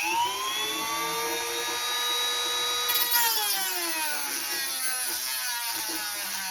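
Dremel rotary tool running at full speed with a high whine. About three seconds in, its pitch drops and wavers as it bites into a stuck screw head, cutting the slot deeper for a screwdriver.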